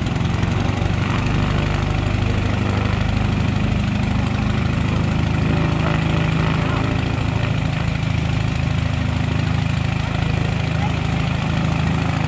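Piston aero engine of a First World War-type propeller aircraft running steadily on the ground during a run-up, with an even low drone.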